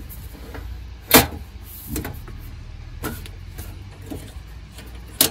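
Steel top cover of an HP ProLiant DL380p Gen8 server being pushed back on and latched. There is a loud metallic knock about a second in and a few lighter knocks, then a sharp click of the lid's latch handle just before the end, over a steady low hum.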